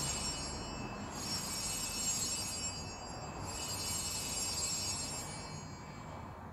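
Altar sanctus bells rung in three separate peals of high, bright ringing, each about a second and a half long and dying away. They mark the elevation of the consecrated host just after the words of institution.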